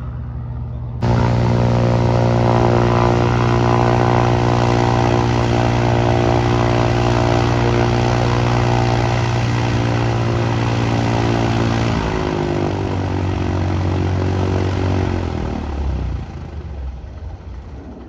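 Small propeller airplane's piston engine running loud and steady, starting abruptly about a second in. Its pitch drops in steps after about eleven seconds as the plane passes, and it fades out near the end.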